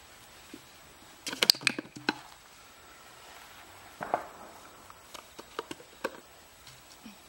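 An empty plastic bottle knocked off a stack of plastic bowls, clattering in a quick cluster of hollow knocks about a second and a half in. A few lighter knocks and taps follow later.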